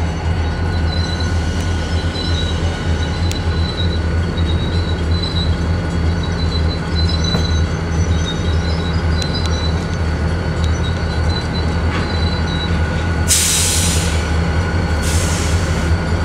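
Huron & Eastern diesel locomotives rumbling at low speed as they pull a freight train, with a thin, wavering wheel squeal from the rails through most of the first two-thirds. Two short bursts of hiss come near the end.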